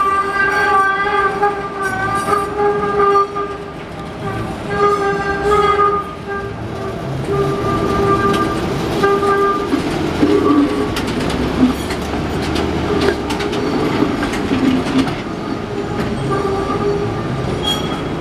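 1948 St. Louis-built PCC streetcar's steel wheels squealing on a curve: a steady squeal that breaks off and resumes through the first ten seconds or so. It then gives way to the car's trucks rumbling and clattering over the rails as it passes close by.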